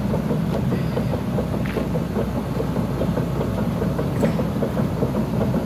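Diesel engine of an XCMG XE215C hydraulic excavator idling steadily, with a light even ticking over the low rumble.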